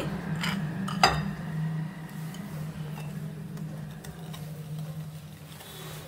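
Wire whisk stirring a thick ghee-and-flour mixture in a glass bowl, with two sharp clinks of metal on the bowl in the first second or so, over a steady low hum.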